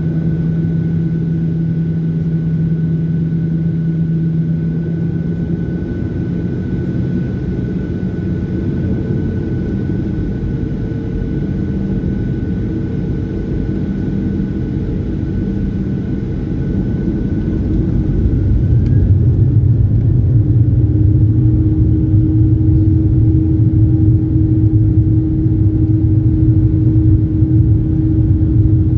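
Cabin drone of a Ryanair Boeing 737's jet engines, steady with a few held tones; about 19 seconds in it grows louder, with more low rumble, as engine power increases.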